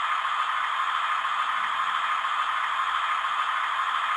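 Sound decoder of a Fleischmann N gauge diesel multiple unit (742098) playing its diesel engine running sound through the model's tiny onboard speaker. It is a steady, tinny rattle with almost no bass.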